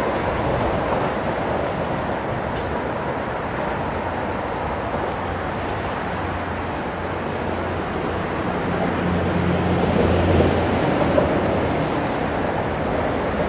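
Steady noise of traffic on a bridge, with wind on the microphone. A low engine hum builds from about five seconds in and is loudest near ten seconds as a vehicle passes, then fades.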